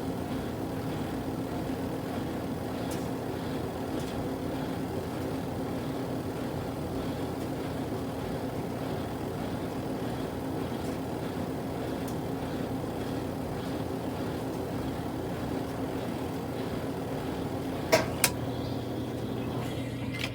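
Kuppet portable washing machine's motor running with a steady hum near the end of its cycle. Two sharp clicks come close together near the end.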